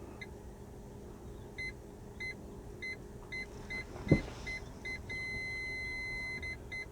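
Aftermarket parking proximity sensor buzzer beeping, the beeps coming closer together, then one solid tone for about a second and a half before two more short beeps: the faster beeping and solid tone signal an obstacle getting very close to the sensor. A single sharp knock sounds just before the beeping turns solid.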